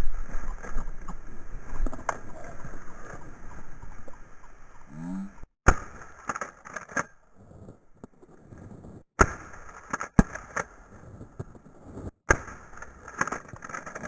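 Shotgun fired several times at a flushed bird, sharp cracks a few seconds apart starting about five and a half seconds in, each cutting the sound out for a moment. Before and between the shots, legs brush through tall dry grass.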